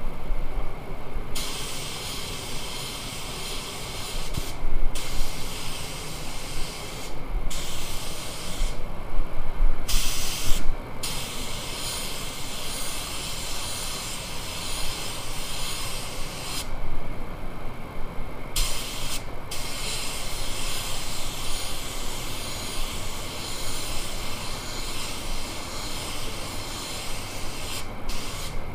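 Compressed-air automotive paint spray gun hissing in long passes, cutting off abruptly several times as the trigger is released between passes. Steady lower background noise runs underneath.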